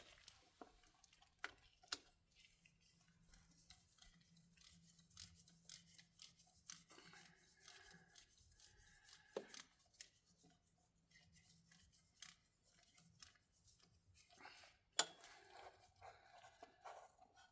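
Near silence broken by scattered faint clicks and taps of hand tools and parts being handled, with a sharper tap about two seconds in, another about halfway and one near the end, over a faint steady hum.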